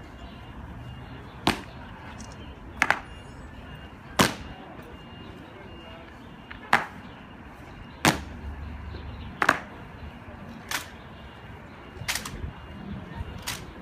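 Honor guards' boot heels striking stone paving in a slow ceremonial drill step: nine sharp cracks at a steady beat of about one every 1.3 seconds, with one beat missing and a few strikes doubled.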